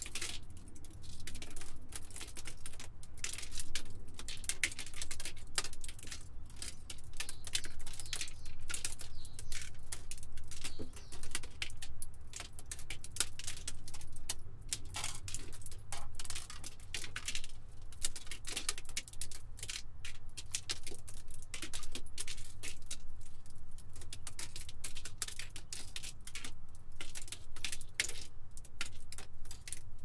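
Glass debris tinkling and clinking: a dense, continuous patter of small sharp clicks, over a low steady rumble.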